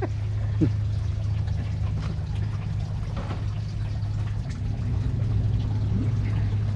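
Coolant trickling out of the radiator as it drains, over a steady low hum.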